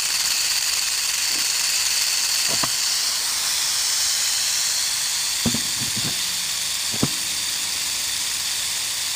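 Western diamondback rattlesnake rattling its tail in a continuous high buzz, the defensive warning of a snake that feels threatened; the buzz eases a little after about four seconds. A few brief faint knocks come in the second half.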